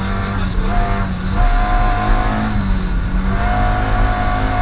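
Rally car engine heard from inside the cabin, pulling hard along a wet tarmac stage, its note rising and falling a little. A high steady whine comes and goes three times over it.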